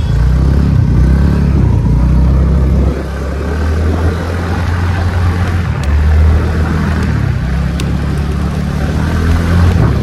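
Scooter engine running under throttle on a rough dirt track, with a steady low rumble. Loudness dips briefly about three seconds in, and a couple of sharp clicks come later.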